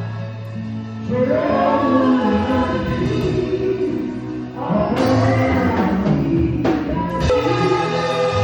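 Live gospel praise music: several voices singing together over steady instrumental backing.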